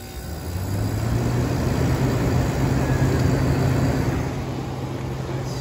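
A 1993 White-Westinghouse 10,000 BTU casement air conditioner starting up. Its Sanyo rotary compressor and fan come on with a low hum and a rush of air that build over about the first second, then run steadily.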